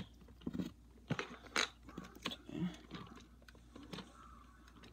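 Plastic Lego bricks clicking and crunching as pieces are pried off a model locomotive and handled: a scatter of short, sharp clicks at irregular intervals.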